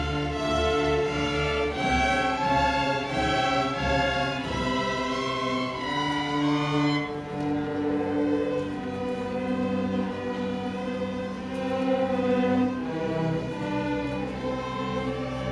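Student string orchestra of violins and cellos playing together, a moving melody over held low notes. About seven seconds in, the high parts drop away and lower, sustained notes carry on.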